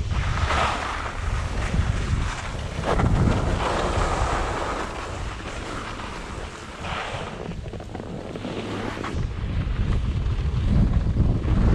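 Wind buffeting a GoPro's microphone while moving down a snow slope, a constant low rumble. Hissing swishes of edges carving the snow come and go, several times.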